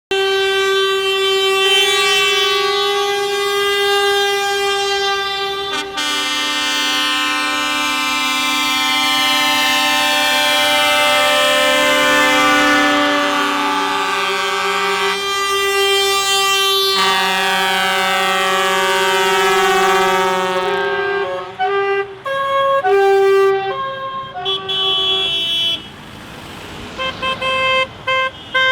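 Several truck horns sounding at once in long, held blasts that overlap into a chord. From about 21 seconds in they break into short, repeated toots.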